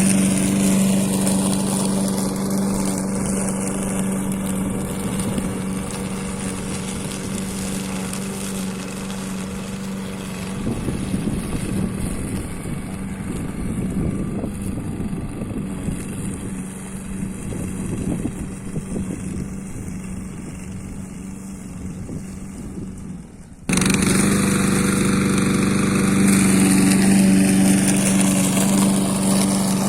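DDE lawn mower running steadily while it chops wet fallen leaves. About a third of the way in its hum turns rougher and noisier, then it suddenly returns to the steady hum near the end.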